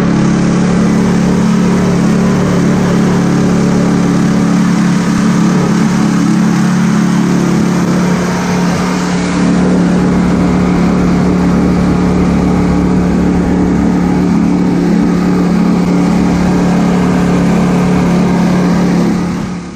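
Engine of a karakat, a homemade all-terrain vehicle, running steadily at cruising speed as it drives along a dirt track, heard from on board.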